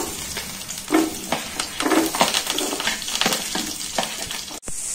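Sliced shallots sizzling as they drop into hot oil in a stainless steel kadai, with a metal spoon repeatedly scraping and pushing them off a plate.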